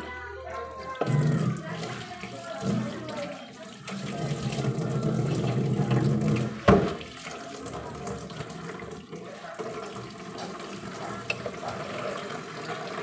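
Water sloshing and splashing as raw chicken livers are washed by hand in a basin. A single sharp knock, like a bowl being set down, comes about two-thirds of the way in.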